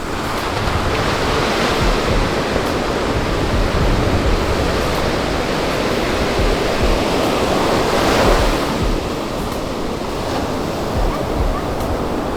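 Ocean surf washing onto the beach, with a wave swelling louder about eight seconds in, and wind buffeting the microphone.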